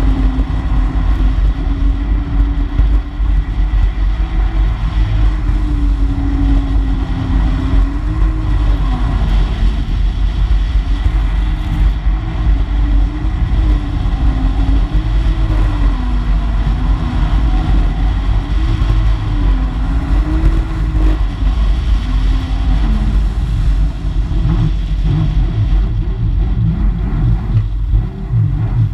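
Jet ski engine running hard at speed, its pitch swinging up and down again and again as the throttle is eased and opened, over a steady rush of water and wind.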